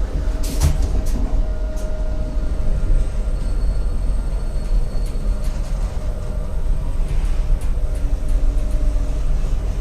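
Toshiba passenger elevator car travelling in its shaft: a steady low rumble, with a couple of sharp clicks about half a second in.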